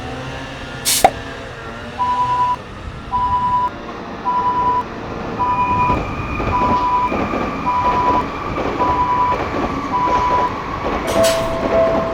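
Japanese railroad crossing warning bell ringing a single repeated tone about once a second while a train's rumble builds from about halfway through. A sharp click comes about a second in and again near the end, where the bell changes to a lower two-note tone.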